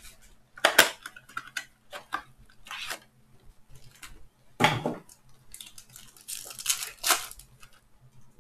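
Cardboard card box and foil-wrapped trading-card packs being handled, rustling and crinkling, as a pack is torn open and the cards are slid out. Sharp crackles stand out about a second in, near the middle and near the end.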